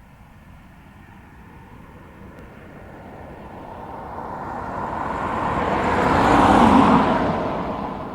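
A car driving past: the sound builds slowly as it approaches, peaks about six and a half seconds in, then fades quickly as it goes by.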